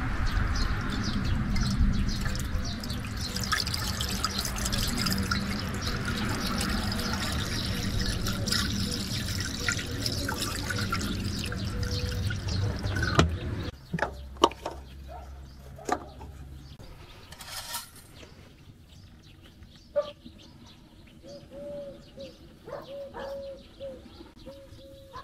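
Liquid pouring steadily, then stopping abruptly about 13 seconds in. Afterwards a few sharp clicks, a brief low hum and a faint wavering tone near the end.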